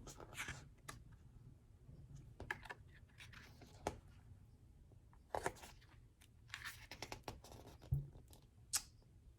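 Paper and cardboard of a K-pop album being handled: scattered rustles, soft scrapes and light taps, with a soft thump about eight seconds in.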